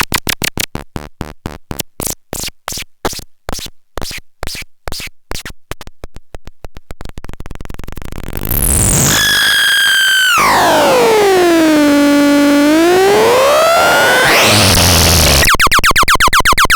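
Electronic synthesizer noise sounds: a stuttering pulse train that slows and thins out, then a held pitched tone that glides steeply down and swoops back up, breaking into a fast harsh buzz near the end.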